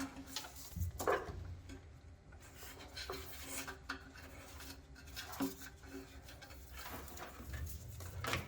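Wiring harness and plastic connectors being handled on a BMW E30: scattered light clicks, taps and rustling, a handful of sharper clicks spread through, over a faint low hum.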